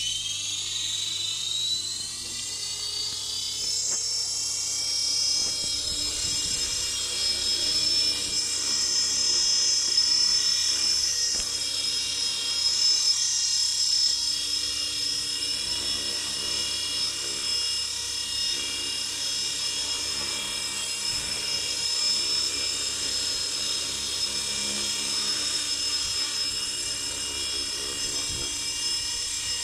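Align T-Rex 450 electric model helicopter's motor and rotor blades spooling up with a rising whine over the first few seconds, then holding a steady high-pitched whine with small swells as it lifts off and hovers.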